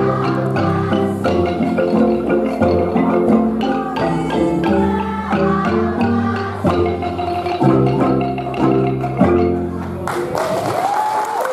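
Kolintang ensemble, wooden xylophones with bass kolintang, playing a hymn tune in struck chords and runs. The music ends about ten seconds in and applause begins.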